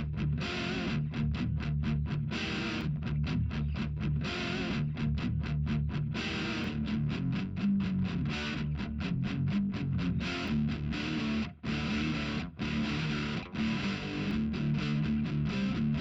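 Background music: distorted guitar playing a fast, chopped rhythm.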